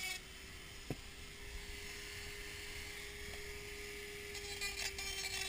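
Handheld rotary tool with a small sanding bit running at a steady high speed, its motor holding one even whine while the bit sands the inside of a helmet shell with a scratchy hiss. One short click about a second in.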